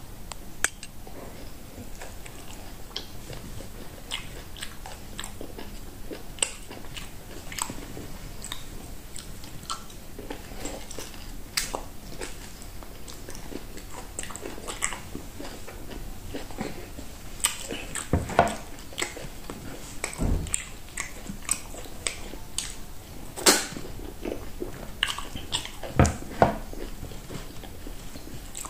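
Close-up eating sounds: a person chewing and biting fufu and okra soup with meat, eaten by hand, with wet mouth sounds and many sharp clicks and crunches. The loudest come about two-thirds of the way in and near the end.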